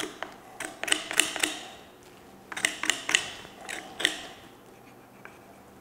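Knife blade scraping down pork rib bones to French-trim a rack of pork: quick runs of short scrapes and clicks, one at the start and another from about two and a half seconds in, stopping a little after four seconds.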